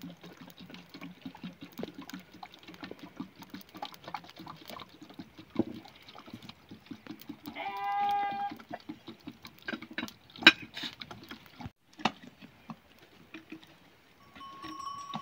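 A sheep bleats once, a steady call about a second long, some eight seconds in. Around it runs a dense patter of small clicks and knocks, with one sharp knock about ten and a half seconds in.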